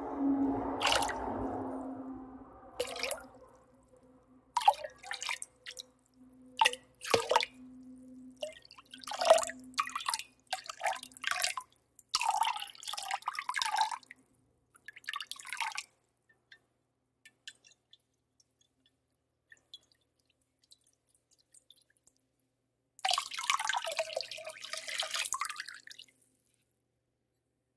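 Water dripping and splashing in a kitchen: a run of sharp drips and small splashes for about the first sixteen seconds, then a quiet stretch, then a short burst of splashing lasting about three seconds near the end.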